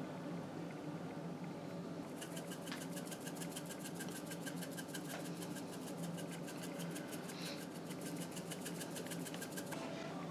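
Faint, fast rhythmic scratching, about seven strokes a second, as a topping is sprinkled by hand onto the top of a casserole. It starts about two seconds in and stops near the end.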